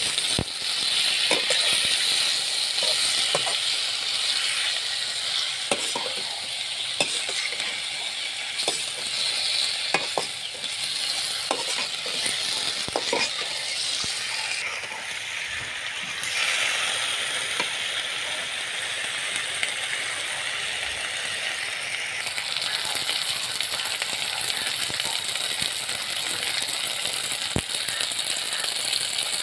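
Thin potato slices frying in a shallow metal pan, sizzling steadily, while a perforated steel skimmer stirs them, clicking and scraping against the pan now and then, mostly in the first half.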